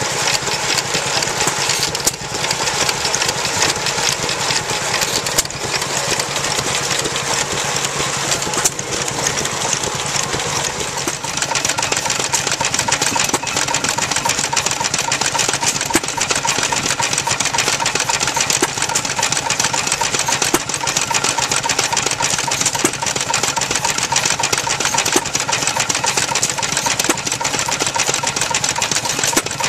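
Vintage stationary engines running steadily with a rapid mechanical clatter, driving belt- and shaft-driven water pumps.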